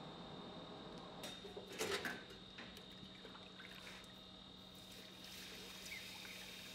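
A short cluster of knocks about a second or two in, then water poured from a jug onto red-hot steel, hissing faintly as it flashes to steam.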